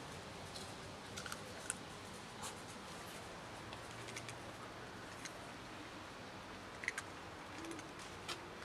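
Cats chewing dry kibble: scattered small crunching clicks, two sharper ones about a second and a half in and near seven seconds, over a steady hiss.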